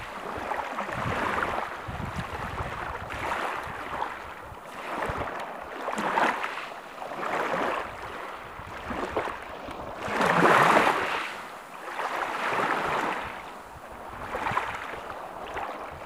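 Small sea waves breaking and washing up a pebbly beach, the surf swelling and falling away every couple of seconds, with one louder wash about two-thirds of the way through.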